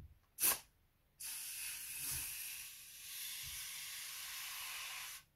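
Aerosol can of spray starch spraying a small cloth sail: a short squirt about half a second in, then a steady spray hiss for about four seconds that cuts off just before the end.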